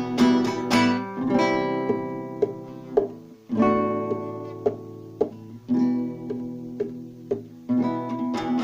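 Acoustic guitar strumming chords in an instrumental passage of a song, each strum ringing out, with a short break about three and a half seconds in.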